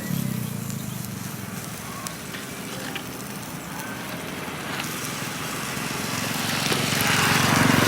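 Satay skewers sizzling and crackling over a charcoal grill, with scattered pops and a steady low engine hum beneath. The hiss grows louder near the end.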